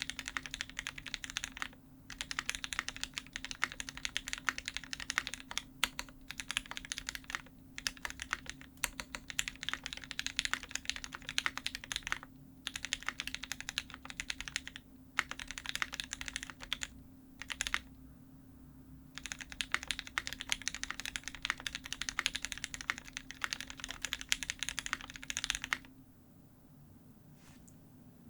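Typing on a custom mechanical keyboard with an aluminium plate, lubed and filmed Gateron Ink Black linear switches and GMK Honeywell ABS keycaps. The keys clack in fast runs with short pauses and stop about two seconds before the end.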